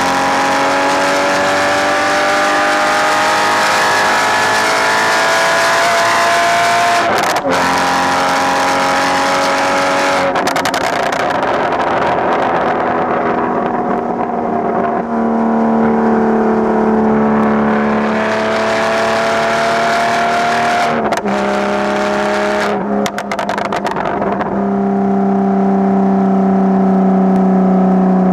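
Porsche Boxster 981's flat-six through a straight-pipe exhaust, heard close at the tailpipes, pulling through the gears of a manual gearbox: the note climbs steadily, drops sharply at an upshift about seven seconds in, roughens for a few seconds, climbs again and drops at another shift near twenty seconds, then holds a steadier note.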